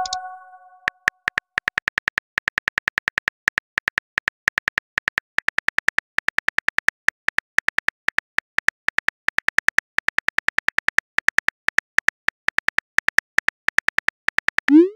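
Simulated phone-keyboard key clicks as a text message is typed, a quick run of short ticks at about six a second. A ringing chime fades out at the very start, and a short rising swoosh comes right at the end as the message is sent.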